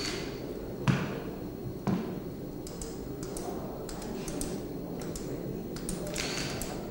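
Two short knocks about a second apart, then a scattering of faint, sharp clicks.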